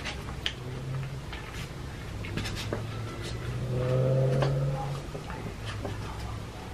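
Metal fork clicking and scraping against the plate while twirling fettuccine noodles, in short sharp ticks. A low drawn-out hum swells under it about the middle and fades again about a second later.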